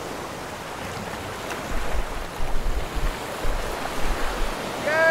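Water rushing and splashing along the hull of a sailing yacht moving fast in a fresh wind, with low gusts of wind rumbling on the microphone in the middle of the stretch.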